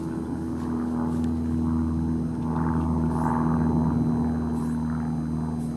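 A steady, low engine drone holding one pitch throughout, swelling slightly in the middle, with a few faint short hisses.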